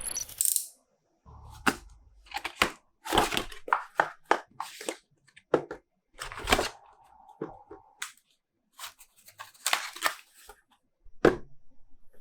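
Toy packaging being handled and opened by hand: a run of irregular sharp clicks, crinkles and tearing of cardboard and plastic.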